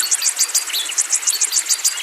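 Birds chirping in a fast run of high, sharp notes, about five a second, with a few short falling calls, over a steady high insect trill.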